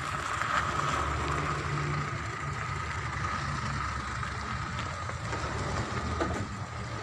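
Steady mechanical background rumble with a faint steady high hum running through it.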